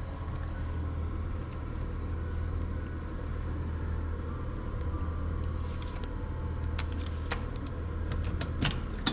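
Steady low engine rumble, with several sharp clicks or knocks near the end.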